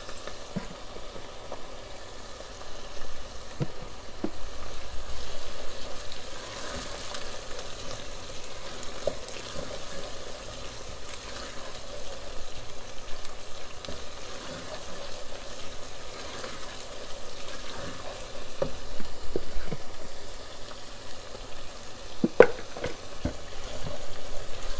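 Chopped onions and berbere frying in oil in a pot, sizzling steadily as a wooden spoon stirs them, with occasional knocks of the spoon against the pot. One sharper knock comes near the end.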